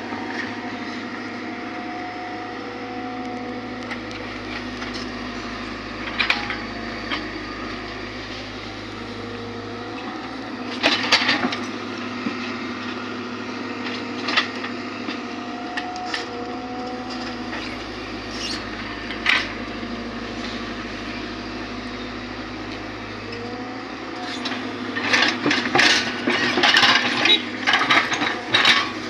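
Excavator's diesel engine running steadily while it handles stones, with a few hard knocks spread through and a burst of rapid clattering near the end as rock strikes rock.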